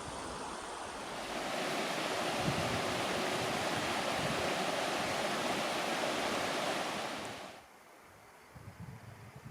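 Wind rushing steadily, strengthening about a second in, then cutting off suddenly, followed by near quiet with a few faint knocks.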